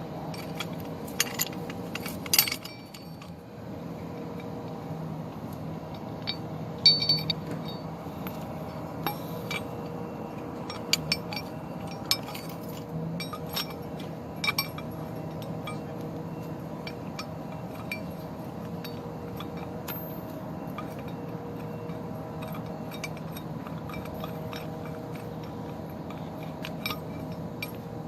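Scattered light clinks and jangles at irregular moments, several in the first few seconds, over a steady low hum.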